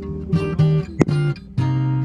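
Background music: guitar chords strummed, with a sharp strum about a second in.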